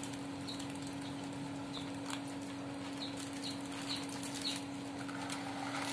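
A steady low hum with faint, short high chirps scattered through it, and a few light clicks and a brief rustle near the end as a wet plastic fish bag is handled over a basin of water.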